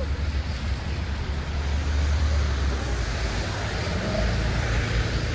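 City street traffic: a heavy vehicle's low engine rumble that fades about three seconds in, over a steady hiss of tyres on the road.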